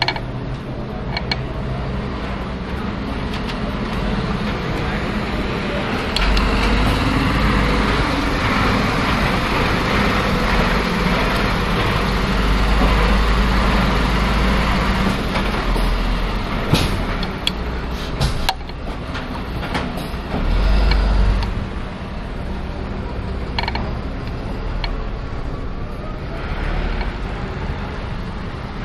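Bicycle riding over brick paving, with wind buffeting the microphone, the bike rattling and creaking, and a box truck's engine running close alongside. The low rumble swells for several seconds and again briefly later, and a few sharp knocks come about two thirds of the way through.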